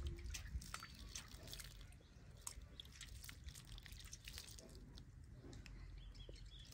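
Faint, scattered drips and small splashes of water in a metal basin, mostly in the first two seconds, then low and quiet.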